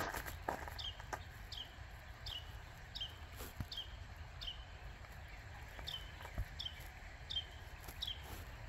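A small bird calling over and over, a short high note sliding downward, repeated roughly twice a second. A few single footstep sounds come through early on.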